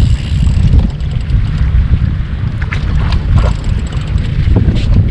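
Wind rumbling on the microphone aboard a small boat at sea, over the wash of the water, with a few faint clicks scattered through.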